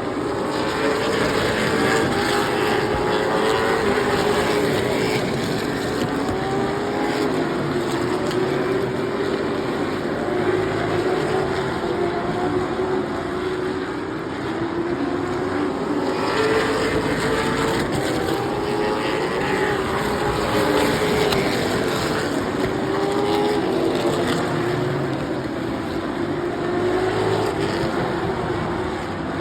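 A field of stock cars racing on a short oval track, several engines at once with their notes rising and falling as the cars accelerate and lift through the turns, the sound running on without a break.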